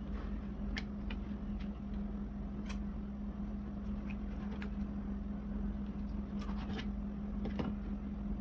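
Steady mechanical hum with a few short, light clicks scattered through it.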